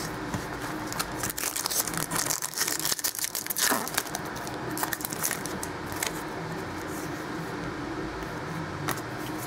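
Foil wrapper of a trading-card pack crinkling and tearing as it is opened and pulled off, loudest from about one to four seconds in. After it come a few light clicks as cards are handled.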